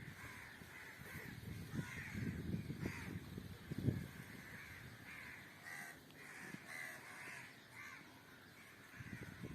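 Kitten making a string of short, hoarse, crow-like calls, one after another. A low rumbling noise sits under the calls for the first few seconds.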